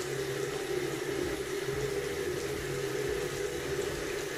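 Tap water running in a thin steady stream into a sink basin.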